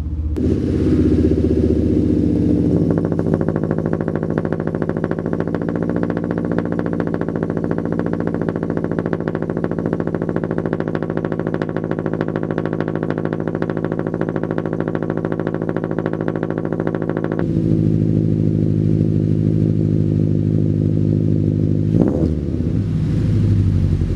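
Subaru Impreza 2.0i's FB20 flat-four with an unequal-length header, idling fast just after a cold start. The tone changes abruptly about two-thirds of the way through, and the pitch rises briefly near the end.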